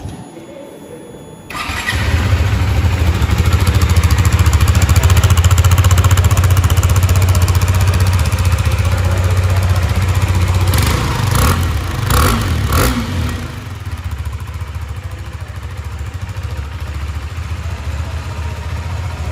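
KTM RC 390's single-cylinder engine starting about a second and a half in and running at a steady fast idle through the exhaust. About two-thirds of the way through it is blipped with a few quick throttle revs, then it drops back to a lower idle.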